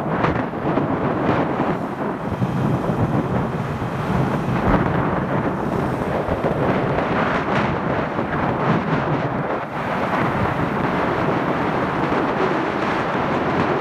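Wind buffeting the microphone while moving along the road: a steady, rough rumble with no break.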